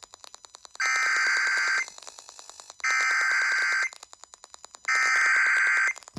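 Emergency Alert System SAME header on AM radio: three bursts of buzzing digital data tones, each about a second long, a second apart, that open a severe thunderstorm warning. Faint rapid static ticking is heard between the bursts.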